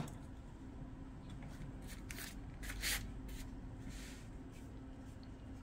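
Cat eating fish from a stainless steel bowl: a run of short, wet chewing and licking clicks, loudest about three seconds in, over a steady low hum.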